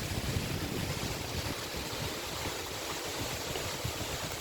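Steady rushing of falling water from the Cascata delle Marmore waterfall.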